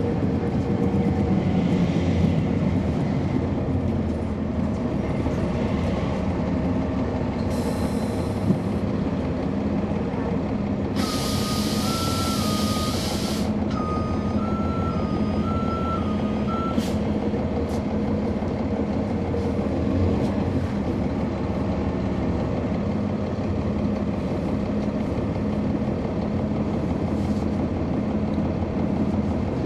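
Cummins ISL9 diesel engine of a NABI 40-SFW transit bus heard from on board, running steadily. About eight seconds in, a short hiss of air. About eleven seconds in, a longer, louder air hiss, with an electronic two-note beeping that runs on for about six seconds.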